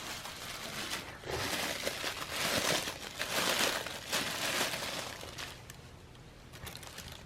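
Packaging being crinkled and pulled open as a small wrapped package is unwrapped. The irregular rustling is loudest in the middle and dies down after about five seconds.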